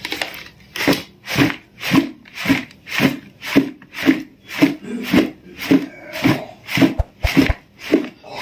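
Large plastic tub of cut-mango avakaya pickle shaken and tossed by hand to mix it, the spiced mango pieces shifting and thudding inside the tub with each toss, about two tosses a second in a steady rhythm.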